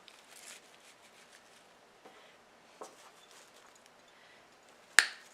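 Faint rustling and light ticks of an artificial floral bush being handled, with one sharp tap near the end.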